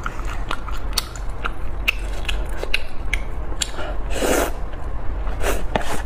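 Close-miked eating of spicy instant noodles: wet chewing and mouth clicks, with a loud slurp of noodles about four seconds in and a shorter one soon after.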